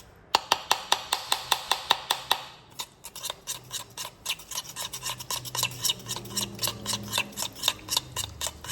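A utensil stirring a thick mixture of softened butter, sugar and honey in a bowl, clicking against the bowl about five times a second at first, then slower and softer from about three seconds in.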